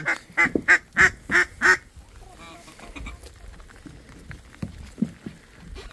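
A rapid series of loud duck quacks, about three a second, stopping about two seconds in; faint knocks and low background noise follow.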